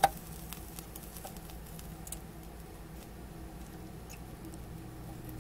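Soldering iron pressing rosin-dosed solder wick onto circuit-board solder holes: faint scattered crackles and small ticks over a low steady hum, with one sharp click right at the start.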